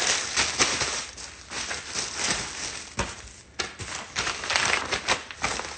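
Handling noise from unboxing: irregular rustling and crinkling with scattered sharp clicks and taps as items and packaging are moved about.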